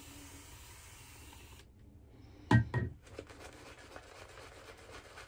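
Two short thumps about two and a half seconds in, then a shaving brush working lather on the face: a fast, bristly rubbing of many small strokes.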